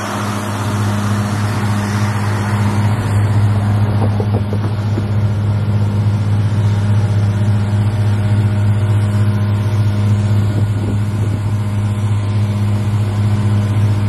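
Steady, loud, low machine hum: a deep drone with a fainter tone an octave above, typical of large industrial machinery or ventilation running at a factory. A car drives past near the start.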